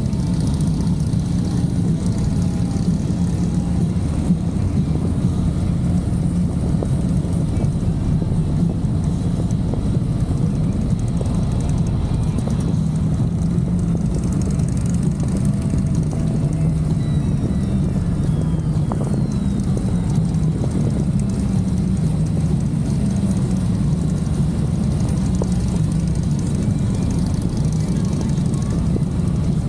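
Motorcycle engine running at a steady speed, a continuous low drone that wavers slightly in pitch.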